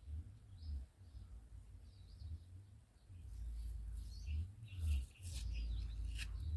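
Small birds chirping over a low rumble, with a couple of short sharp sounds near the end as a knife cuts into a fresh aloe vera leaf.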